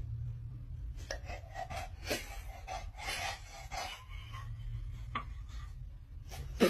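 English bulldog panting close to the microphone: a run of short, rough breaths from about a second in, fading out later, with a sharp click near the end.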